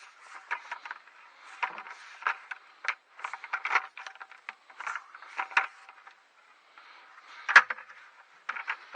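Hand-digging potatoes: irregular scrapes and short knocks of a digging tool working through soil, with one sharper knock about three-quarters of the way through.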